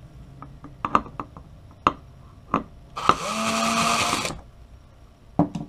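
Sharp clicks of metal parts being handled at the head actuator of an opened Western Digital hard drive, then a motor-like whirr about three seconds in lasting just over a second, and a few more clicks near the end.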